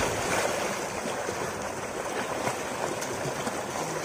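Water gushing steadily from a tube well's outlet pipe into a concrete tank, with a person splashing while swimming in it.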